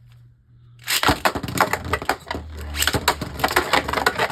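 Two Beyblade Burst spinning tops, Eclipse Devilos and Eclipse Genesis, launched into a plastic stadium about a second in, then spinning and clashing with dense rapid clicking and clattering.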